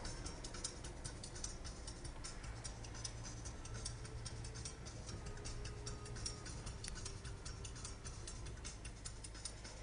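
Low, steady road and engine rumble heard inside a moving car, with rapid, irregular clicking over it.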